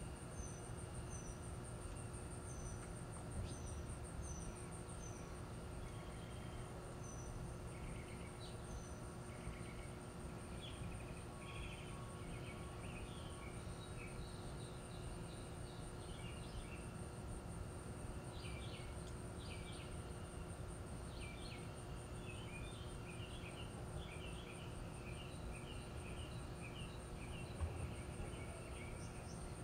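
Faint outdoor ambience: a steady high insect trill runs throughout, with birds chirping over it, a string of short high chirps in the first few seconds and busier chirping through the second half, above a low, even background rumble.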